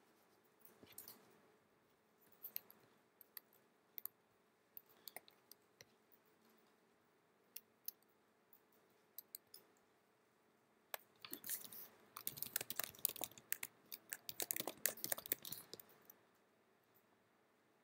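Scattered single clicks from a computer mouse or trackpad, then about eleven seconds in a fast run of laptop keyboard typing lasting several seconds.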